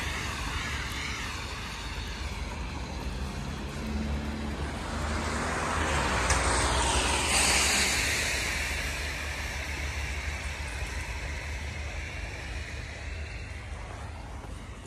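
Car tyres hissing on wet asphalt as traffic drives by. One car swishes past, building to the loudest moment about six to seven seconds in, then fading away.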